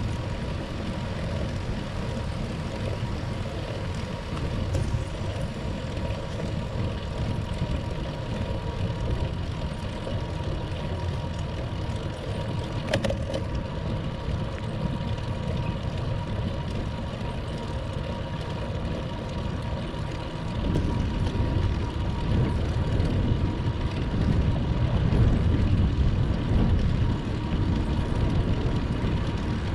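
Wind buffeting the microphone and road noise of a bicycle ride, an uneven low rush that grows louder and gustier about two-thirds of the way through. A single short click near the middle.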